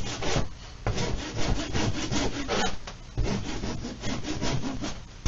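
Wood rasp worked rapidly back and forth over a deer leg lamp kit's mold, shaving it down to fit the leg: a rough scraping of quick strokes, broken by short pauses between runs.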